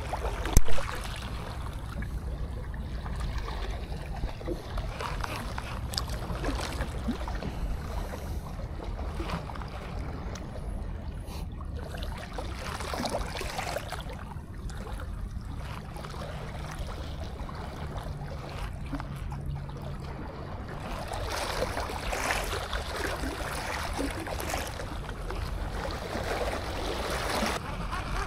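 Small waves lapping and washing against shore rocks, with wind rumbling on the microphone. There is a brief loud bump just under a second in, and a faint low hum for a few seconds in the middle.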